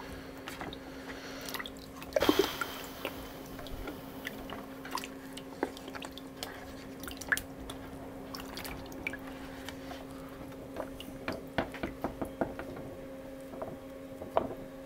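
Water splashing and dripping as a photographic print is rinsed by hand in a bucket of wash water, the wash stage of RA4 colour processing, with a louder splash about two seconds in. A steady low hum runs underneath.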